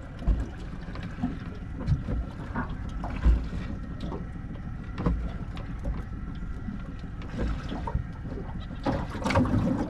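Small aluminium boat drifting in a swell: water lapping at the hull and wind rumbling on the microphone, with scattered light knocks.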